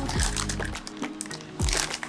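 Background music: an instrumental stretch of a pop song, with held notes and deep kick drums that drop in pitch, one near the start and another near the end.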